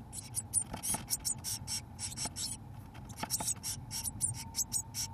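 Blue tit nestlings begging: a rapid, continuous run of short, high-pitched calls from several chicks at once, broken by a few scratches and rustles of movement in the nest box.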